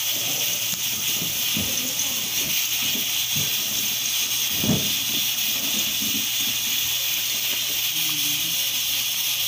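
Steady hiss of cooking on a gas stove, with a few short knocks of a wooden spoon against an aluminium pot, the loudest about halfway through.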